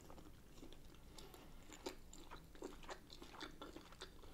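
A person chewing and biting a mouthful of shrimp-boil food close to the microphone: faint, irregular wet clicks and small crunches.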